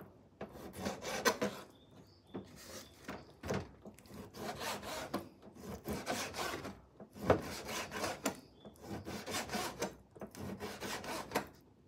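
Kitchen knife slicing raw chicken into small pieces on a cutting board: a run of short sawing strokes and taps of the blade on the board, with one louder knock about seven seconds in.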